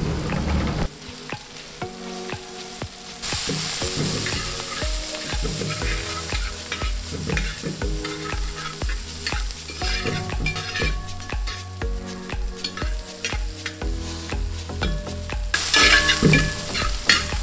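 Sliced shallots and green chillies sizzling in hot coconut oil in a wide metal uruli while a spatula stirs and scrapes them, the sizzle growing louder about three seconds in.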